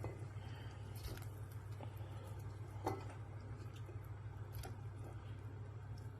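Low steady hum with a few faint, scattered ticks and clicks.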